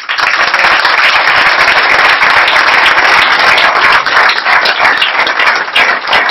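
Audience applauding: loud, dense, steady clapping from a crowd.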